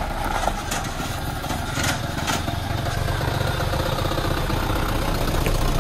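Hyundai HD120SL crane truck's diesel engine running as the truck pulls away and drives close past, getting louder in the second half. A few sharp clicks come in the first couple of seconds.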